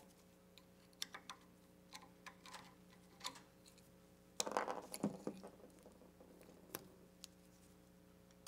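Light, scattered clicks and handling noises of a wire compression ring being reshaped and worked onto the grooved end of a CV axle shaft by gloved hands, with a short burst of clicking and scraping a little past halfway.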